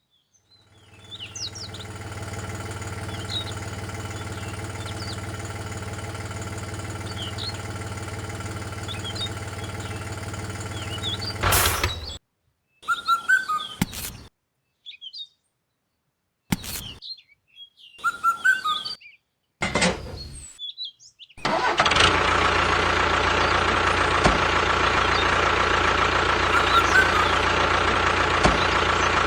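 Small motor of a DIY miniature tractor running steadily, with birds chirping in the background. About halfway through, the sound breaks into short choppy bits with silent gaps, then the motor comes back louder and steady.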